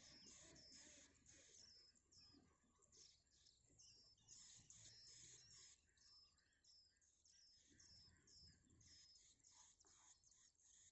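Faint, high-pitched chirps from small songbird nestlings begging while being fed, repeating steadily at about two to three a second.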